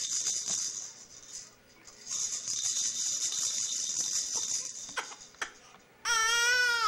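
A baby rattle is shaken in two spells. Then, near the end, an infant lets out one short, loud cry.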